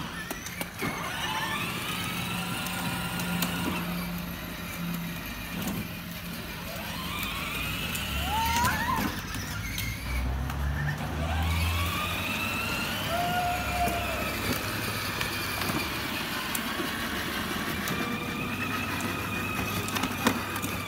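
Electric drive motors of a battery-powered ride-on toy pickup truck whining, the pitch rising and falling every few seconds as it speeds up and slows, over a steady low hum.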